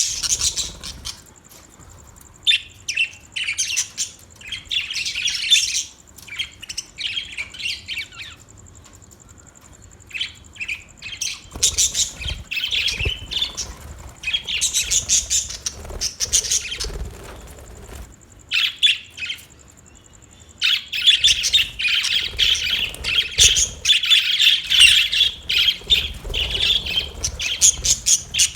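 Budgerigars chirping and chattering in irregular bouts of quick, high chirps and squawks, with short pauses, and a long, busy run of chatter in the last third.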